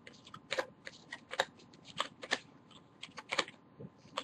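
Baseball trading cards being handled and flipped through one after another: an irregular string of light clicks and snaps, about two or three a second.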